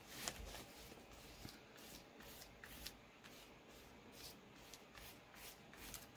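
Faint rustling and light ticks of paper as a hand presses and smooths a freshly glued paper piece flat onto a card.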